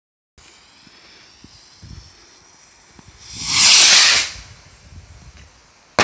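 Keller firework rocket launching: a loud hiss lasting about a second as it climbs, then a single sharp bang right at the end as its charge bursts.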